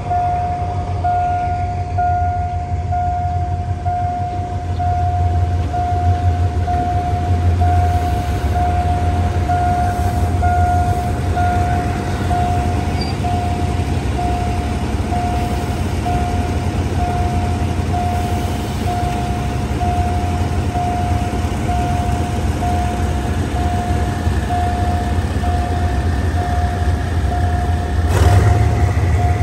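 A level-crossing warning signal beeps a single tone about once a second over the low rumble of an idling Alsthom diesel-electric locomotive. Near the end there is a short sharp noise and the low engine rumble grows louder.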